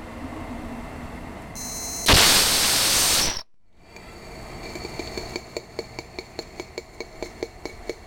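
Small gaseous-oxygen/ethanol rocket igniter firing for about a second: a loud rushing hiss that starts abruptly and cuts off sharply, after a fainter steady hiss. The burn reached only 63 psi chamber pressure against a 100 psi design, with an oxygen-rich, hot, almost invisible flame. Afterwards a regular ticking, about five a second, sets in.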